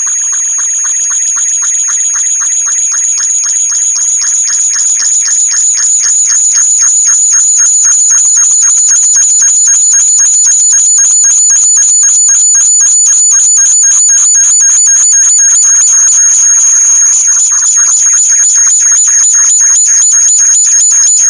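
Audio feedback loop between a computer's built-in microphone and its own speaker play-through: a loud, steady high-pitched squeal with fast, even pulsing, swelling over the first few seconds and then holding.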